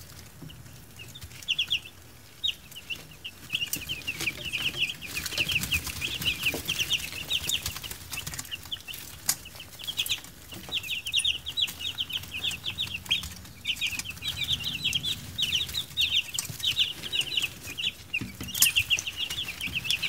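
A brooder full of eight-day-old meat-bird chicks peeping continuously: a dense chorus of quick, high cheeps, with scattered faint ticks.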